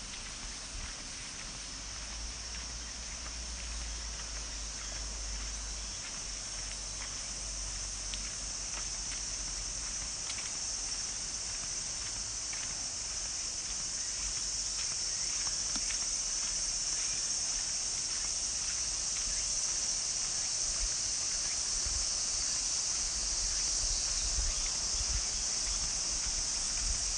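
Insects trilling in a steady high-pitched chorus that slowly grows louder, with a low rumble and a few faint clicks beneath.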